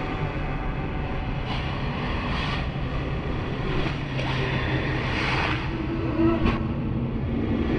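Layered horror ambience: a steady low rumble and hum under recurring swelling gusts of hissing noise, with one sharp click about six and a half seconds in.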